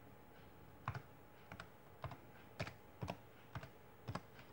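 Faint, slow, uneven typing on a computer keyboard: about ten separate keystrokes, as when a short command is typed into a command prompt.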